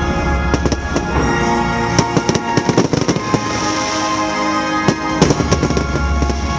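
Fireworks going off in rapid bangs and crackles, thickest in two flurries, over music playing.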